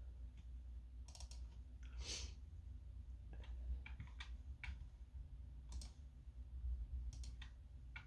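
Sparse, irregular clicks of computer keys, a dozen or so spread over several seconds, over a low steady hum. A short hiss comes about two seconds in.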